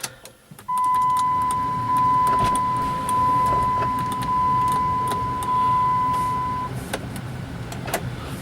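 A 2006 Dodge Grand Caravan's dashboard warning chime: a steady electronic tone that sounds for about six seconds once the key is switched on, over a low electrical hum. A few switch clicks come near the end, as a power window fails to move.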